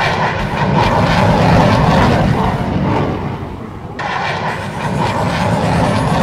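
Jet aircraft engine sound effect: a loud, steady rushing noise that cuts and starts again about four seconds in, with a faint rising whine after that.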